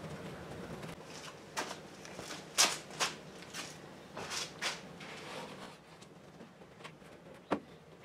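Hand-handling noise from working the headliner fabric: a string of short rustling swishes, loudest through the middle, then one sharp click near the end.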